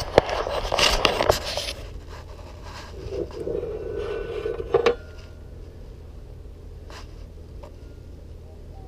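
Metal scraping and clattering as a Hustler Raptor SDX mower deck spindle shaft, blade attached, is worked loose and pulled down out of its housing. A rougher scrape runs for about two seconds midway and ends in a sharp click, followed by a couple of light clicks.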